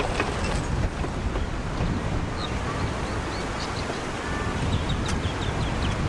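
Mediterranean surf breaking and washing onto a sandy beach, a steady rush with a low rumble from wind on the microphone. A few short bird calls sound faintly over it in the middle.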